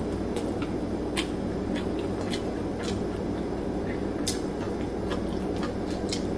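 Eating sounds: scattered soft mouth clicks and smacks of someone chewing food eaten by hand, over a steady low background hum.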